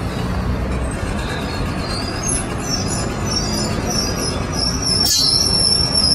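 City street traffic: a heavy vehicle running nearby, with a steady high-pitched whine that starts about two seconds in and a sharp click about five seconds in.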